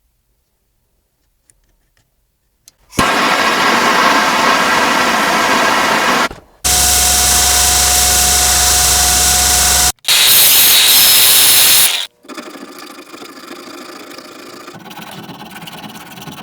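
Workshop power tools running in short edited clips that start and stop abruptly: silence, then loud grinding-like noise about three seconds in, a steady machine hum with a held tone, another loud burst, and quieter noise near the end.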